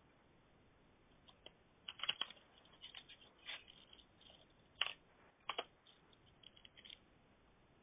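Faint, irregular clicks and taps heard over a telephone line, in scattered clusters through the middle of the stretch.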